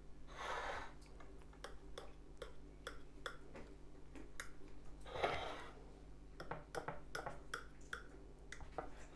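Faint scattered clicks and taps of a knife against the board as a chocolate-glazed cake is sliced, with two brief soft hissing noises, about half a second in and about five seconds in.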